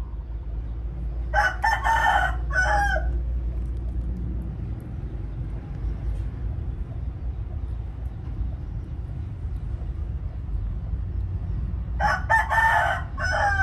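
A rooster crowing twice, about ten seconds apart, each crow lasting about a second and a half, over a steady low rumble.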